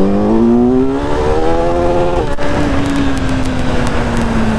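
Kawasaki Z900's inline-four engine on its stock exhaust, accelerating hard, its note rising steadily. There is a short break about two seconds in as it shifts up, then a steadier note that slowly sinks.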